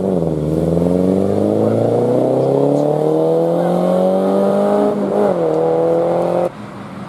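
Rally car engine under hard acceleration, its pitch climbing steadily through a gear with a brief dip at about five seconds like a quick gear change. The sound cuts off suddenly near the end.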